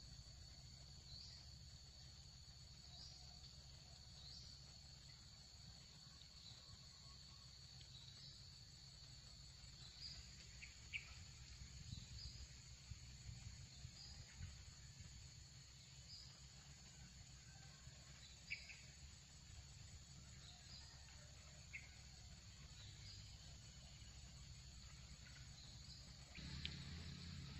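Faint, steady high-pitched insect drone, with short rising chirps repeating about every second and a half and a few small clicks, over a low rumble that grows louder near the end.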